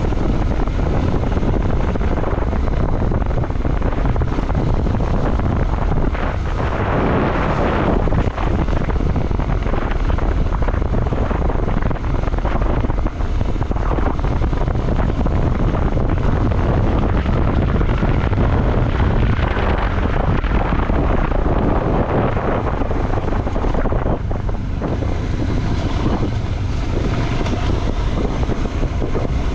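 Motorcycle engine running while riding, buried under heavy wind rumble on the microphone.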